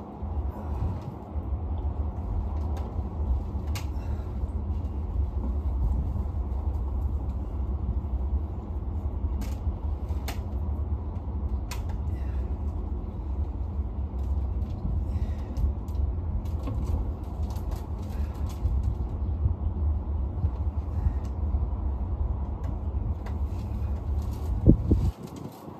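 Wind buffeting the microphone: a steady, uneven low rumble that stops suddenly near the end, with a few faint clicks over it.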